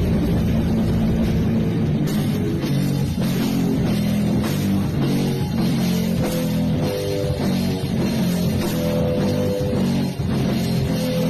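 Live band playing heavy metal during a sound check: distorted electric guitar over a drum kit, with drum hits coming in steadily about two seconds in.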